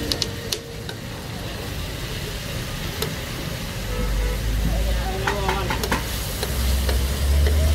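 Liver cubes sizzling in oil on a large flat metal griddle (tawa) while a metal spatula scrapes and clinks against the plate, with a quick run of clinks about five to six seconds in. A low rumble builds underneath in the second half.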